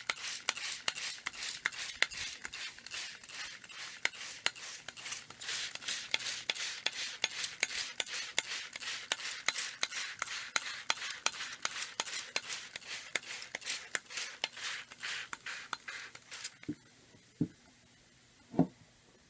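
Baking soda and vinegar fizzing on paper: a dense crackle of tiny bubbles popping, several clicks a second, which stops about three-quarters of the way through. Three soft, low pops follow near the end.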